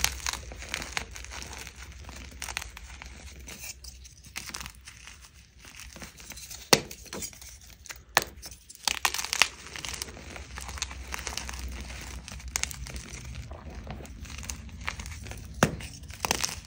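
Soft blocks of dyed gym chalk squeezed and broken by hand, crunching and crumbling into loose powdered chalk, with a few sharper snaps as pieces break off.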